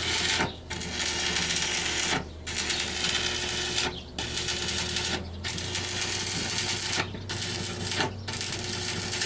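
Arc welding on a farm machine's steel frame: the arc runs in spells of one to two seconds, each broken off briefly before it is struck again, about seven runs in all.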